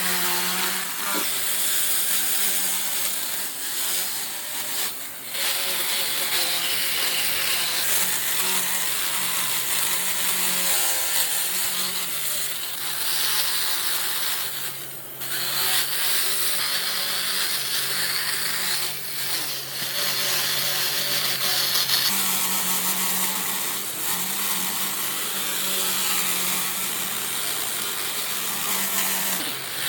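A power tool running steadily on wood, with a low motor hum beneath a hissing cut, breaking off briefly a few times.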